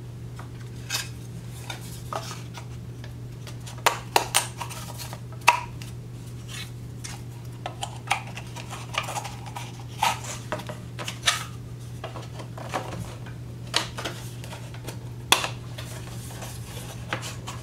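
Thin plywood panels clacking, tapping and scraping as they are handled and their tabs pushed into slots, in irregular light knocks, a few sharper than the rest, over a steady low hum.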